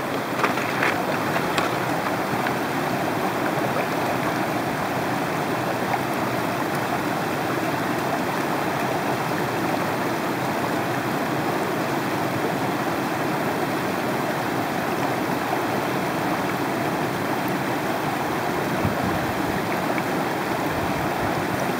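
Shallow, rocky mountain river rushing steadily over and around boulders.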